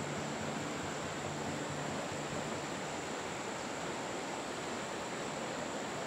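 Steady rushing of a fast-flowing river over rapids, an even wash of water noise. Low music notes fade out during the first couple of seconds.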